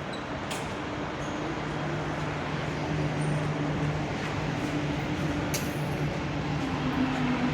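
Metro train approaching through the station, a broad rumble that slowly grows louder, with a low steady electrical hum and a few faint clicks.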